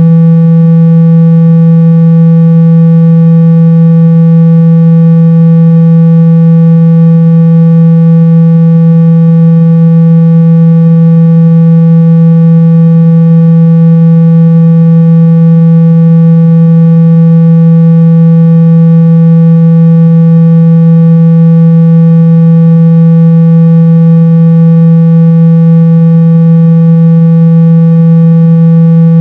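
Phone-speaker cleaning tone: a loud, steady, unchanging low-pitched tone, played to shake dust and water out of a phone's speaker.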